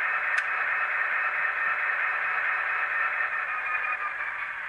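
Sound from an ESU LokSound Select decoder played through a tiny 14 mm by 25 mm speaker in an HO-scale Austrains X-class diesel model: a steady thin hiss with no bass, with a single click about half a second in, easing off slightly near the end.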